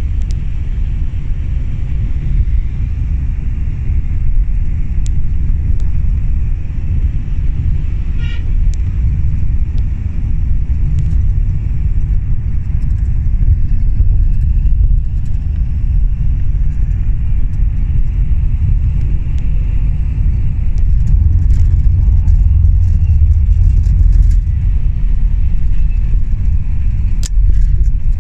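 Steady low rumble of engine and road noise inside a moving bus's passenger cabin, a little louder after about twenty seconds. A short horn toot sounds about eight seconds in.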